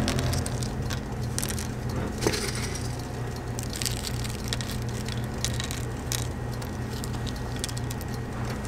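Light clicks and crunchy rustling as a gloved hand drops dry chocolate cereal rings into the cups of a bubble-waffle iron, over a steady low hum.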